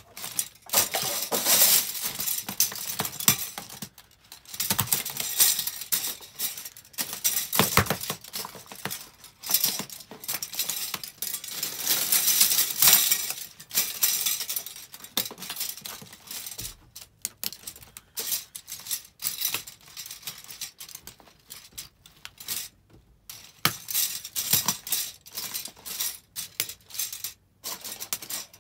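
Disposable plastic spoons crackling, snapping and clattering as they are trodden on and crushed underfoot, in stretches of dense clicking with a few brief pauses.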